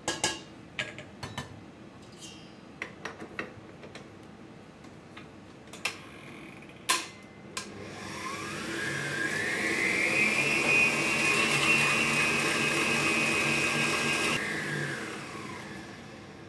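A few sharp clinks and knocks of a spatula and utensils against steel bowls, then about eight seconds in a stand mixer starts, its motor whine rising to a steady pitch as the balloon whisk beats egg whites and sugar. About six seconds later it is switched off and winds down over a second or two.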